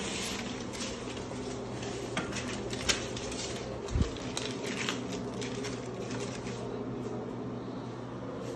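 A steady low machine hum fills a small room, with scattered clicks and rustles of the phone being handled as it moves, a sharp click about three seconds in and a low thump about four seconds in.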